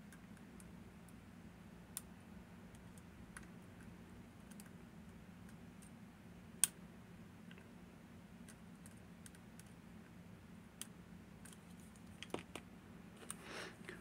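Faint, scattered clicks of a lock pick working the pin stacks of a Miwa VM88 cam lock, one sharper click a little past the middle and a quick run of clicks near the end, over a low steady hum.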